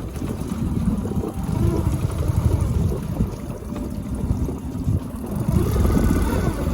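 Suzuki 9.9 hp outboard motor running on a small boat, heard as an uneven low rumble mixed with water noise. The owner puts the motor's misfire down to fouled spark plugs from fuel treatment.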